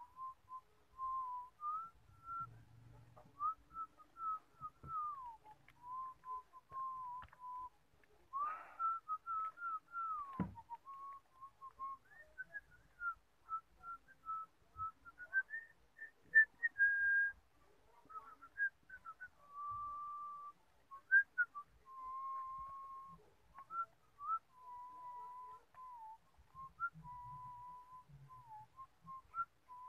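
Someone whistling a slow, wandering tune of held notes and short slides, with a single sharp knock about ten seconds in.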